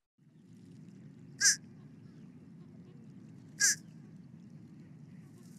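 Fish crow calling from a recording: two short calls about two seconds apart, each falling slightly in pitch, over a low steady hiss.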